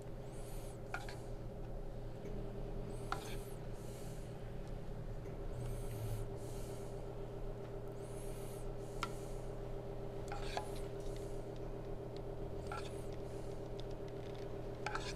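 A metal ladle scraping a saucepan and spooning thick white sauce over cannelloni in a glass baking dish: a short scrape or squelch every two seconds or so, over a steady low hum.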